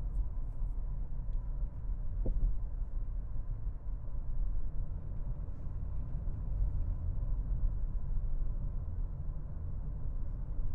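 Steady low road rumble of a 2024 Toyota RAV4 at highway speed, heard inside the cabin.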